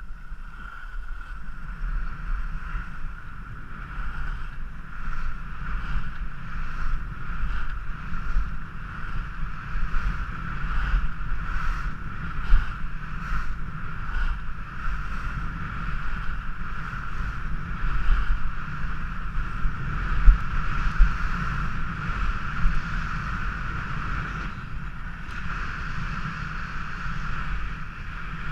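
Wind buffeting a head-mounted action camera during a downhill ski run, with skis hissing and scraping over packed snow in irregular strokes. A steady high tone runs under the rush.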